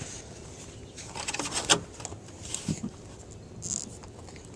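Faint scraping and clicking of a tire-plug insertion tool being worked into a tire puncture. It comes in short scratchy bursts, most of them between about one and two seconds in.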